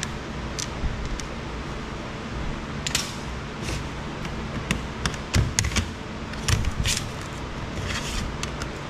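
Scattered small clicks and knocks of a screwdriver and loose metal parts being handled on a steel workbench while an Apple Wi-Fi base station is unscrewed and taken apart, over a steady background hiss. The clicks bunch up in the second half.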